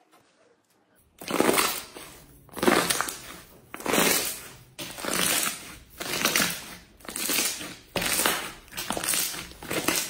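Glossy yellow-green slime pressed and squeezed by hands, making wet crackling and popping squishes as trapped air is pushed out. The presses come about once a second, starting a second or so in.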